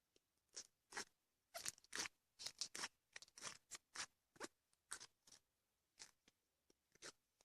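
Clear slime being stretched, squished and poked by hand, giving an irregular run of short, faint pops and crackles, several a second.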